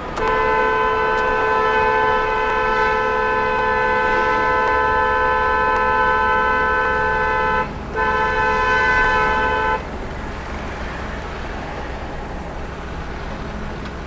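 A vehicle horn heard from inside a truck cab, sounding one long steady blast of about seven and a half seconds, then after a brief break a second blast of about two seconds. Under it runs the steady low rumble of the engine and the road.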